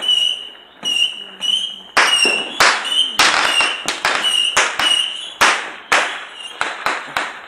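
Fireworks and firecrackers going off: an irregular run of sharp cracks and pops, several a second at times, with a thin high whistling tone coming and going between them.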